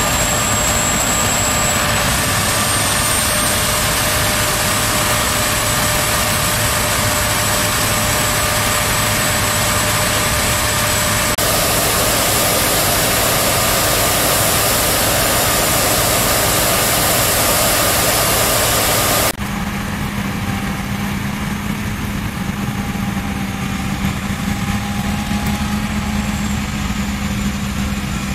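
Claas Lexion 570C combine harvester running under load while harvesting maize: a steady engine and threshing-machinery drone with a high, constant whine. The sound changes abruptly twice, at cuts in the footage, and is somewhat quieter for the last part.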